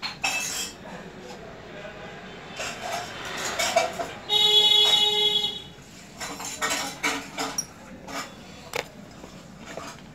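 Small metal clicks and clinks as brass LPG gas-stove parts are handled. Near the middle, a steady buzzing, horn-like tone sounds for a little over a second and is the loudest sound.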